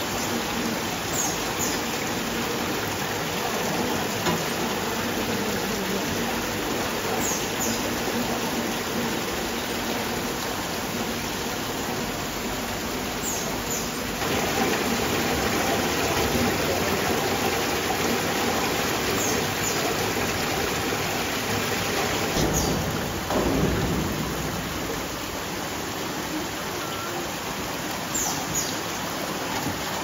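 Water pouring and spraying over a stainless-steel mesh conveyor carrying boba pearls on a production line, a steady splashing that grows a little louder about halfway through.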